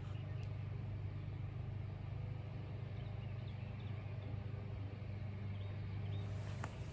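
Steady low machine hum, with a few faint short chirps from birds.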